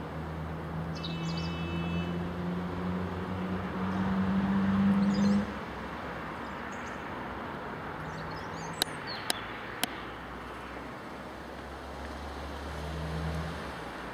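A train's low running hum, rising in pitch and growing louder for about five seconds, then dropping away suddenly. A few bird chirps sound, three sharp clicks come a little past halfway, and a fainter hum swells near the end.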